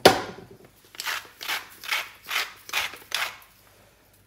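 A hand-held spice mill grinding salt and pepper: about six short rasping twists, roughly two a second. It follows one sharp knock at the start.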